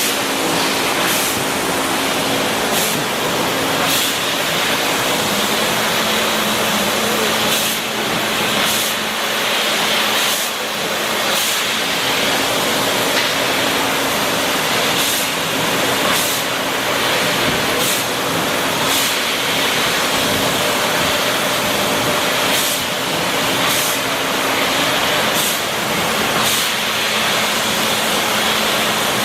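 Trumpf TruLaser 3030 CNC fiber laser cutter running: a steady hiss over a steady machine hum, broken every second or two by short sharp spits.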